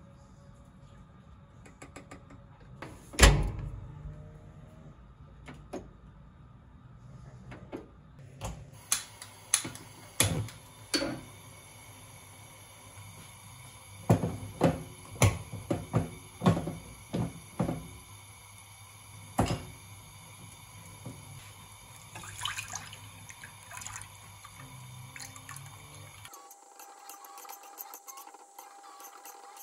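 Household handling sounds: a loud knock about three seconds in, then scattered clicks and, in the middle, a quick run of clinks and taps as a saucepan on a gas hob is filled and stirred with a metal spoon, with liquid pouring.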